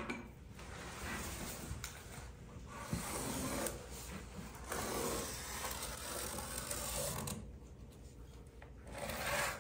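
Scraping and rubbing as a vinyl plank riser piece is handled against the bottom stair and marked for a scribe fit to the uneven concrete floor, in several strokes of a second or so each.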